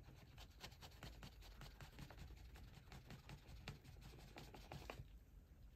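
Faint rapid clicking and scratching of a hydraulic lifter's piston being pumped by hand in a tub of cleaning fluid, its valve held open with a drill bit to flush out the old oil. The clicks thin out near the end.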